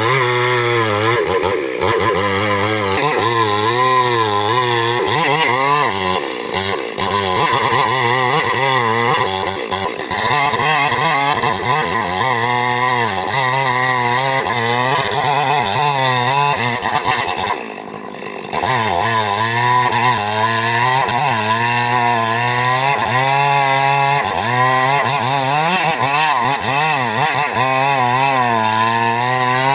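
Stihl MS 382 two-stroke chainsaw running loudly, its engine speed wavering up and down throughout, with a brief drop about two-thirds of the way through.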